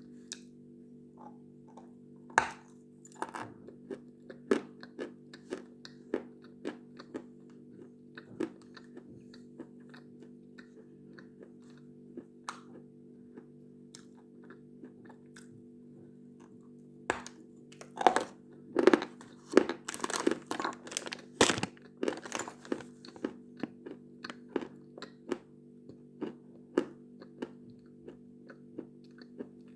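Khrapovsky chalk being bitten and chewed: crisp, ringing crunches and cracks, scattered at first, then a quicker run of louder crunches a little past the middle, over a steady low hum.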